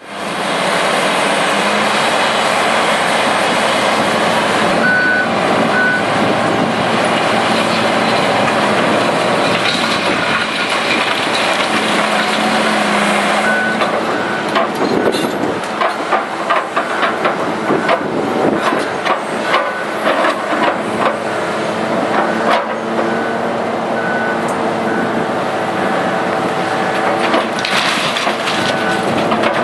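Heavy excavator's diesel engine running steadily while its hydraulic demolition crusher jaws work into a brick wall. From about halfway through come many sharp cracks and knocks as brick and masonry break and fall. Short high beeps sound now and then.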